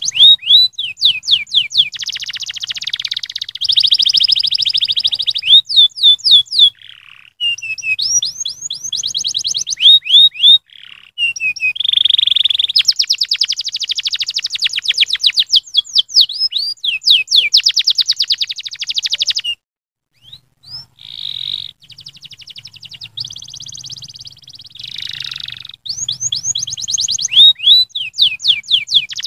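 Domestic canary singing a long, loud song of fast rolling trills and runs of quick falling whistles, with a short break about twenty seconds in.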